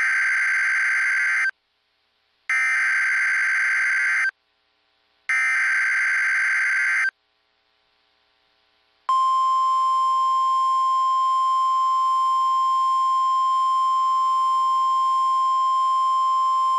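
Emergency Alert System header: three short bursts of screechy SAME digital data tones, evenly spaced, then after a pause a long steady 1050 Hz NOAA Weather Radio warning alarm tone starting about nine seconds in, signalling an alert bulletin to follow.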